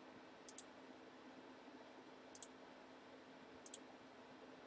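Faint computer mouse clicks over near silence: three quick double clicks, spaced about a second or more apart.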